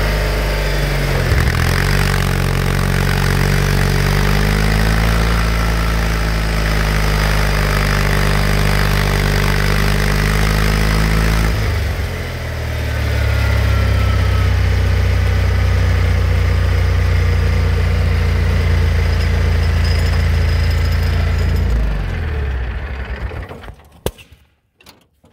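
Simplicity Sovereign garden tractor engine running steadily. Its note changes with a brief dip about halfway through, then it winds down and stops a couple of seconds before the end.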